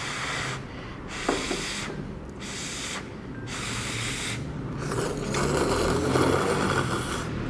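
Noodles being slurped from a bowl with chopsticks: about five separate slurps, the last and longest near the end, with a single light tap about a second and a half in.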